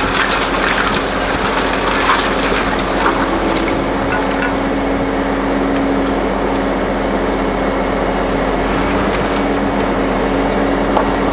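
Pickup truck engine running steadily with a constant hum, under a loud even noise. A few short clatters of lumber and scrap metal settling come in the first couple of seconds.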